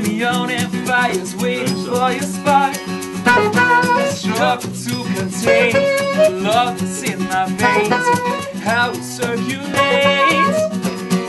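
Live acoustic band music: a strummed acoustic guitar under a wavering melody line, with a tambourine and shaker rattling along in time.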